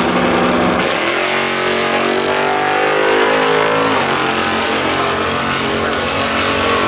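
Drag race launch: a black Chevy drag car leaves the line about a second in, its engine revving up hard with the pitch rising as it pulls away down the track. After about four seconds the sound settles into a steadier run.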